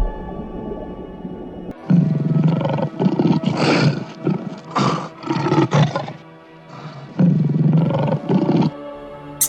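A big cat roaring and growling in four rough bouts, starting about two seconds in, over steady background music.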